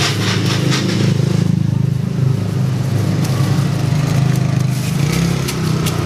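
An engine runs steadily at idle, a low, even drone. A few light clicks and scrapes come from fruit being cut by hand, near the start and again near the end.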